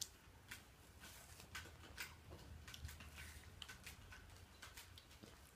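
Near silence: room tone with faint, irregular small clicks.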